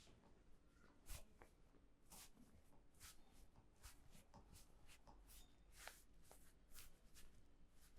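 Faint short brushing strokes of hands rubbing and stroking dry hair and scalp during a dry head massage, about a dozen, uneven, roughly one or two a second.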